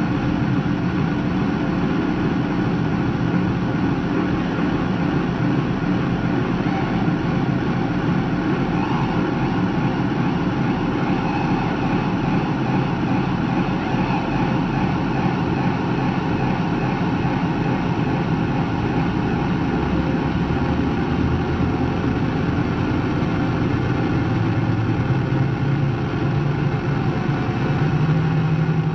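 Dense, steady drone of guitar noise run through effects pedals and loops: a continuous wall of distorted noise with sustained low tones, and a lower hum that swells in near the end.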